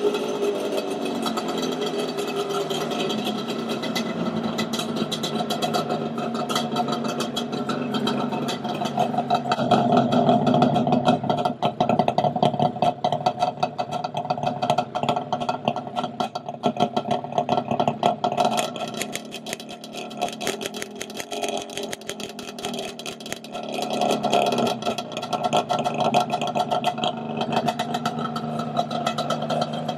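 Yamaha Banshee 350's twin-cylinder two-stroke engine running through aftermarket silencers. It picks up and runs louder for a few seconds about ten seconds in, falls back quieter around twenty seconds in, and comes up again a few seconds later.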